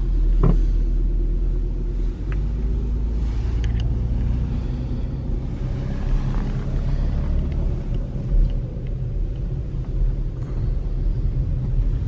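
Car driving, heard from inside the cabin: a steady low rumble of engine and tyres on the road, with a few light clicks.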